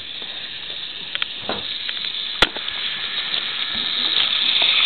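Battery-powered Fisher-Price GeoTrax toy train running on its plastic track, its small motor and gears making a steady whirring noise that gets louder toward the end as the locomotive nears. A few sharp clicks sound along the way, the loudest about halfway through.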